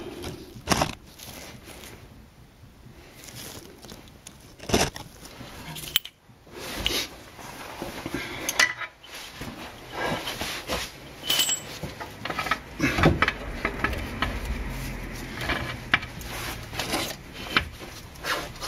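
Irregular metallic clinks and knocks of a wrench and bolts against the front suspension parts while the bolts are fitted and tightened, with a low rumble of handling about two-thirds of the way in.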